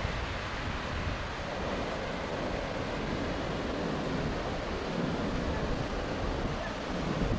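Rough sea surf breaking over rocks and against a seawall, a steady rushing wash of waves, with wind rumbling on the microphone.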